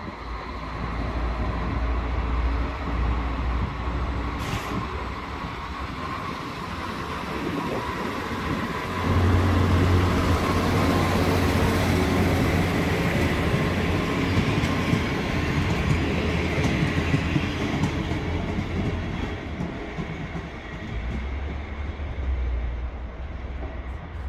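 ČD class 810 diesel railcar pulling out of the station. Its engine note swells and is loudest about nine seconds in as the car passes close, with wheel and coupling noise, then it fades as the train moves away.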